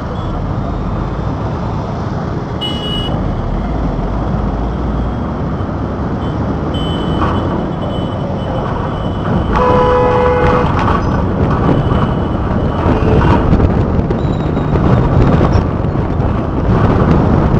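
Road traffic heard from a moving vehicle: a steady rumble of engine and tyre noise, with a vehicle horn honking for about a second roughly ten seconds in.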